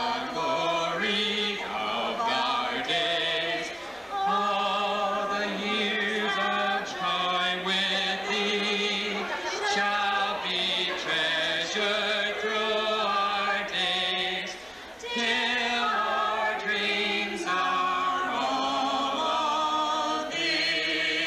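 A small group of men and women singing a high school song together into a microphone, on an old VHS recording. The singing breaks briefly twice, about four seconds in and again near the middle.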